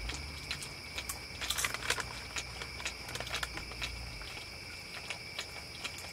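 Snack bag rustling and chips crunching in irregular sharp clicks, busiest about two seconds in, over steady high cricket trilling.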